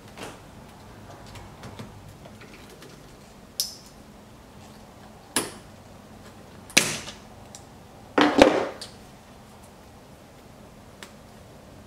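Hand work on a C8 Corvette's MagRide shock connector and its plastic clip, with a pry tool. A few sharp plastic clicks and knocks come a second or two apart, and the loudest is a quick double knock about eight seconds in.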